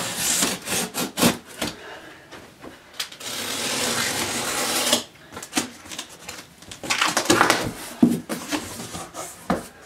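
A utility knife slitting packing tape along a large cardboard box: scattered clicks and scrapes, then a steady scratchy rasp for about two seconds as the blade runs along the seam. Near the end comes louder scraping and rustling of cardboard as the flaps are pulled open.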